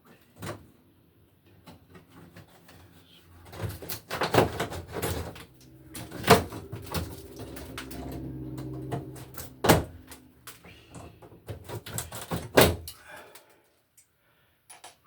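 A series of sharp knocks and scraping as a rusted metal electrical box, nailed to the stud, is pried and knocked loose from the wall.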